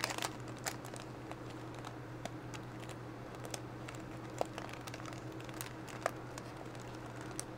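Clear plastic bag of metallic foil confetti crinkling as fingers dig through it, in scattered light crackles and clicks, busiest near the start.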